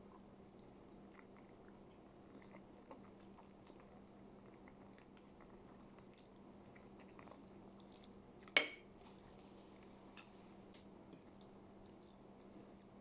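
Faint eating sounds of pasta being chewed, with small wet mouth clicks scattered throughout and one sharp click about eight and a half seconds in, over a steady low hum.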